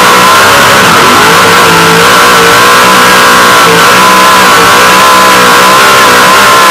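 Off-road race truck's engine running loud at racing speed, its pitch dipping and climbing again several times, with a steady high whine over it.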